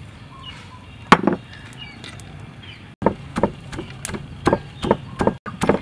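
Wooden pestle pounding fresh chilies in a wooden mortar (Khmer pounding bowl). There is one loud knock about a second in, then steady dull knocks about two a second in the second half.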